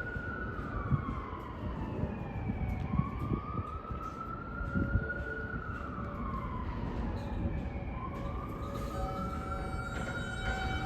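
An emergency vehicle siren wailing, its pitch slowly rising and falling about every five seconds, over low city rumble. Steady tones join in near the end.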